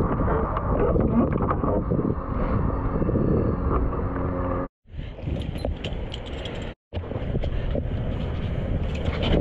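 Wind buffeting the camera microphone, with scattered knocks and rustles of gear being handled in a car trunk. The sound cuts out completely twice, briefly, near the middle.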